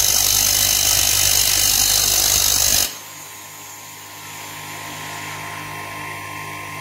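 A steel bolt head spun in a cordless drill is ground against a bench grinder wheel, which turns the hex head into a round sleeve. There is a loud, steady grinding hiss over the grinder's motor hum. About three seconds in it stops suddenly as the part is lifted off, and the grinder runs on more quietly.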